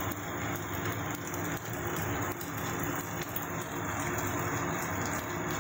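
Pasta cooking in a pan on a gas stove: a steady, even hiss with a low hum underneath.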